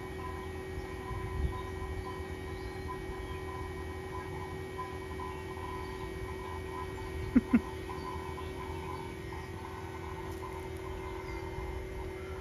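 Steady hum of an HVAC vacuum pump running as it evacuates an air-conditioning system. Two short, sharp clicks come close together about seven and a half seconds in.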